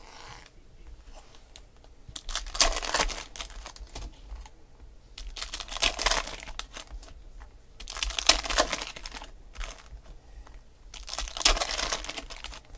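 Foil trading-card pack wrappers being torn open and crinkled by hand: four bursts of crinkling and tearing, each about a second long.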